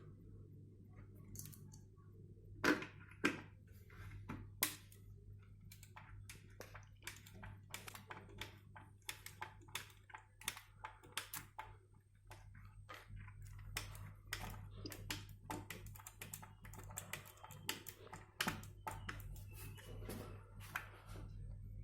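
Irregular small clicks and taps of hands and tools working on the parts of a large speaker being taken apart, with a few sharper knocks, over a steady low hum.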